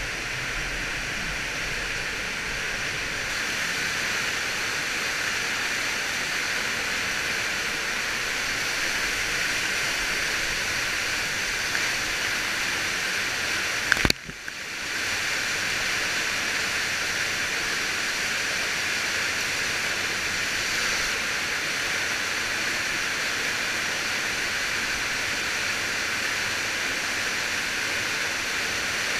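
Water cascading down a narrow cave passage close by: a steady, even rushing. About halfway through there is one sharp click and the rushing dips for a moment before returning.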